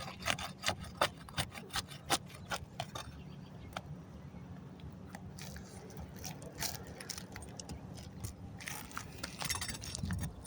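Existing asphalt shingles being lifted so that their sealant bond breaks, giving short sharp crackles and scrapes, thickest in the first three seconds and again near the end, over a steady low rumble.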